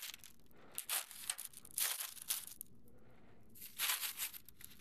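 Plastic and foil packaging crinkling and rustling as hands rummage through a meal-kit box, in three short bursts about a second, two seconds and four seconds in.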